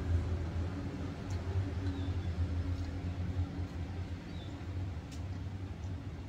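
Quiet hand-eating sounds, with soft chewing and a few faint clicks of fingers and rice against a ceramic bowl, over a steady low hum.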